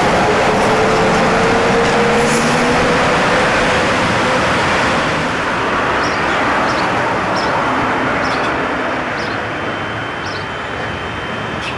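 1950s ex-Vestische articulated tram pulling away, its traction motors whining with a slowly rising pitch that fades out after about four seconds, over a steady rushing noise. A few faint clicks follow.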